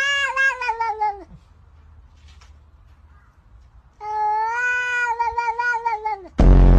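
Domestic cat giving two long, drawn-out meows a few seconds apart, each rising then falling in pitch. A loud, low buzzing sound cuts in at the very end.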